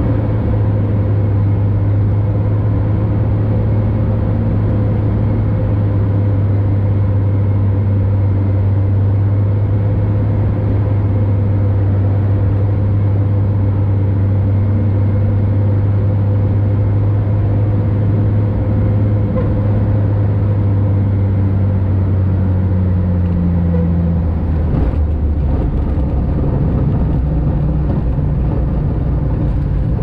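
Cessna 180's six-cylinder piston engine and propeller droning steadily inside the cabin on landing approach. About two-thirds of the way through, the drone drops lower as power comes off for the touchdown.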